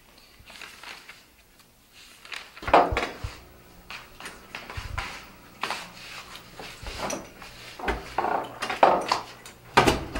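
Faint paper rustling at first, then about a second and a half later a run of irregular knocks, bumps and clatters, the loudest near the start of the run and near the end.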